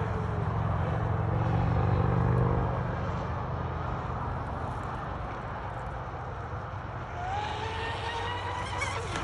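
Pro Boat UL19 RC hydroplane's brushless electric motor whining as it speeds across the water, with spray hiss. The whine is faint while the boat is far off and rises in pitch from about seven seconds in as it accelerates. A low steady rumble dominates the first three seconds.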